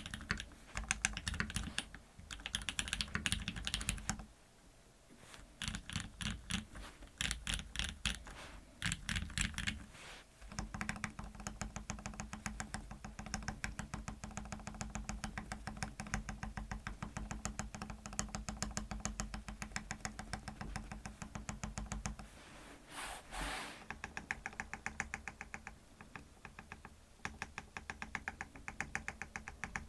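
Custom Duck Viper v3 mechanical keyboard with lubed, filmed Cherry MX Black linear switches on an FR4 plate, typed on in bursts of quick keystrokes. About ten seconds in, the typing gives way to a steadier, faster run of presses on the stabilized keys: shift, enter and the spacebar.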